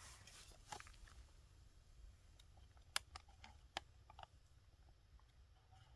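Near silence with a few faint sharp clicks and crinkles from handling a foil freeze-dried meal pouch as it is sealed shut; the clearest click comes about three seconds in, another just under a second later.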